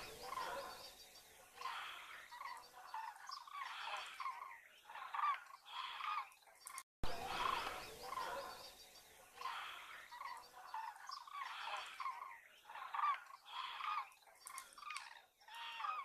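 A flock of common cranes calling in flight: many overlapping calls, one after another, with a brief break about seven seconds in.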